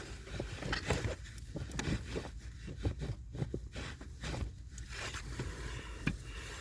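Irregular small clicks and scrapes of hand tools and a screw being handled while refitting the blower motor's housing, over a steady low hum.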